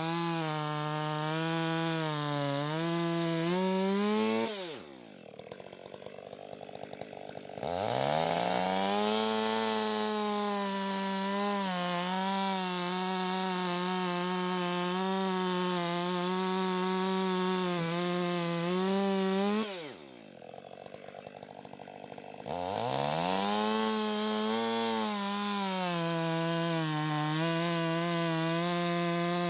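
Chainsaw running at full throttle while cutting through wood, its pitch wavering under load. Twice (about five seconds in and again about twenty seconds in) the throttle is let off to a quiet idle, then it is revved back up about three seconds later.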